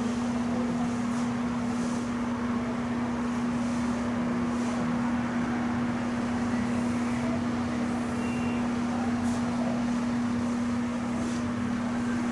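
Steady machine hum: one constant low tone over an even hiss of room noise, unchanging throughout.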